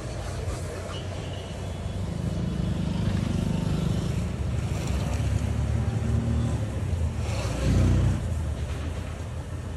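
Low rumble of a motor vehicle engine that builds over several seconds, is loudest about eight seconds in, then eases off.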